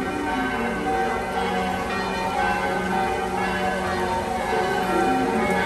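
Church bells of St. James Church pealing, several bells struck in turn so that their ringing tones overlap and carry on without a break.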